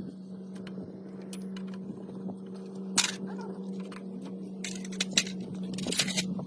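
Motorcycle pushrod engine running with a steady low hum and irregular sharp clicks and taps, the kind of valve-train noise blamed on the pushrods.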